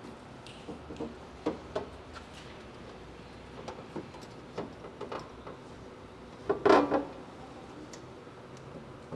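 Snorkel body being worked into the fender cutout and its pinch-weld edging: a scattering of light knocks and clicks, with a louder clatter about two-thirds of the way through.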